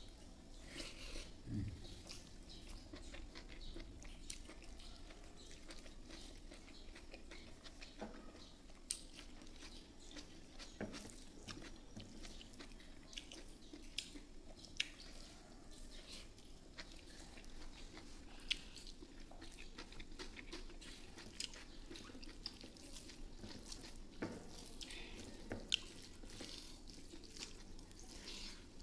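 A person chewing and biting a mouthful of beef innards and rice eaten by hand, with wet mouth clicks and smacks at irregular intervals.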